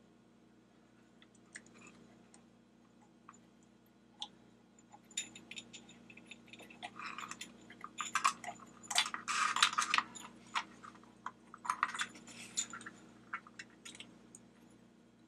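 A flashlight's body, head and rubber switch cap being handled and pushed together by hand: scattered small clicks, then a busier run of rubbing, scraping and clicking in the middle, loudest about nine seconds in, as the parts are fitted with a 9-volt battery inside.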